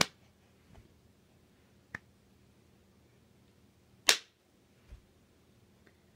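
Three sharp hand claps: one right at the start, a softer one about two seconds in, and the loudest about four seconds in, each followed by quiet.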